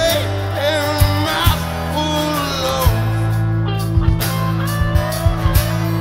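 Live band playing: strummed acoustic guitar, drums with kick-drum thuds, and a Roland VK-7 organ-style keyboard holding sustained notes under a gliding melodic line.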